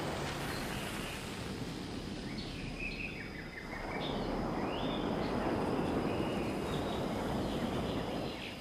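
Steady outdoor rushing noise that dips and then swells again about four seconds in, with a few short, high bird chirps in the middle.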